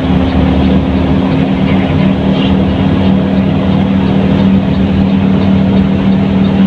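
Diesel engine of a front-engined Mercedes-Benz 1623 bus running under way: a steady, loud drone with road noise.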